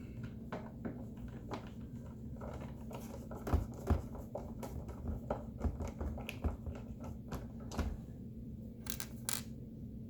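Irregular small clicks, scrapes and a few knocks of a tri-wing screwdriver and hands working on a coffee maker's plastic base as its bottom screws are driven back in, with two louder knocks a few seconds in.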